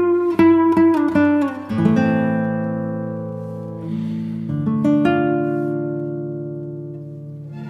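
Background music on acoustic guitar: quick plucked notes, then chords left to ring and fade, with a new chord about four and a half seconds in.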